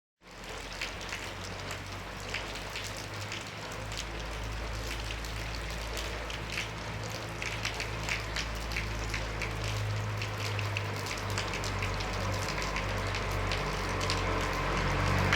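Steady rain with many separate drops ticking on a hard surface, over the low steady rumble of a Toyota Bandeirante's engine running. The rumble grows louder toward the end.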